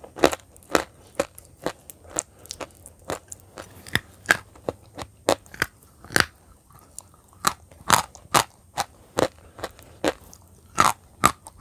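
Chunks of chalk being bitten and chewed: a run of sharp, irregular crunches, two or three a second.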